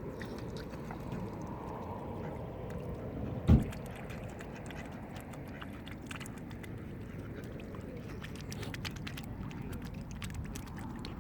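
Mallard ducks quacking over a steady background hiss, with one loud, short low thump about three and a half seconds in.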